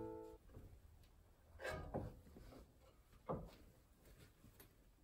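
Acoustic guitar chord dying away in the first half-second, then near silence with a few faint, short soft sounds.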